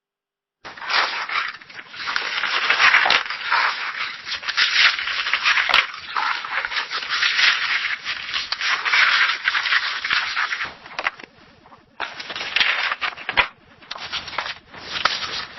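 Pages of a paper book being turned: dense rustling and flicking of paper, starting about half a second in, with short lulls near the end before it resumes.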